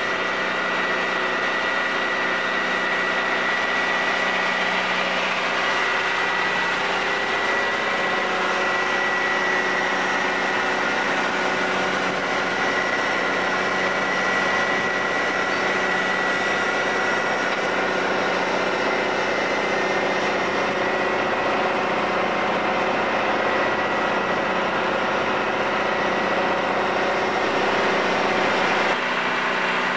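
An engine idling steadily, with a constant high whine over its drone.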